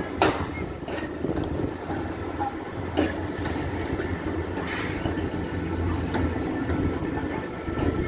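Tram 2000 rolling slowly through a curve over track junctions: a steady rumble of steel wheels on rails with a low hum, broken by a few sharp clacks as the wheels cross rail joints and crossings.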